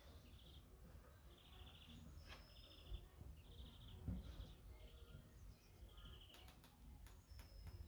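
Faint spring songbirds singing: short, repeated trilled phrases and an occasional thin high whistle, over a low steady rumble. A few sharp clicks come near the end.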